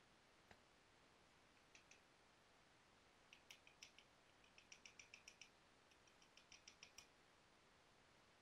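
Faint small sharp clicks of stone being worked by hand while flintknapping a piece of Rainy Buttes: a few single clicks, then two quick runs of many clicks at several a second, about three and about six seconds in.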